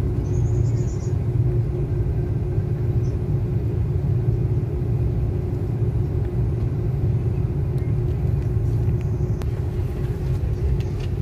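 Airliner cabin noise on the ground: a steady low rumble from the engines with a steady hum running through it.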